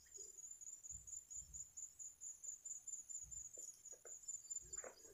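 Crickets calling in a steady, high-pitched trill.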